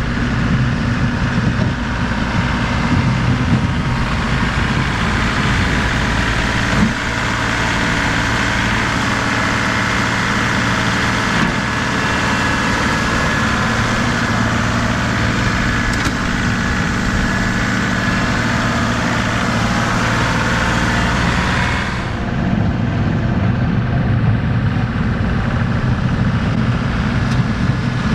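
Compact tractor engine running steadily while plowing snow with the loader bucket. About three-quarters of the way through, the sound suddenly turns duller as the hiss drops away.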